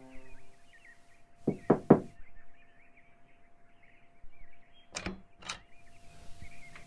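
Three quick knocks on a bedroom door, the loudest sound here. About three seconds later come two clicks of the door handle and latch as the door is opened.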